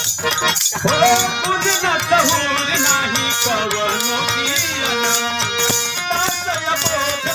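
A Bhojpuri devotional song (vandana geet) performed live: a man sings a wavering melodic line through a microphone and PA, over instrumental accompaniment with held notes and a steady rattling percussion beat.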